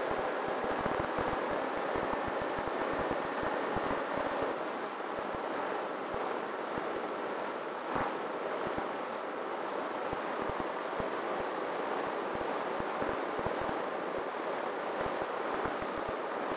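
Wind rushing past a model plane's onboard camera in flight, with gusty buffeting on the microphone. A faint steady motor whine underneath shifts in pitch a few times, and there is a brief bump about eight seconds in.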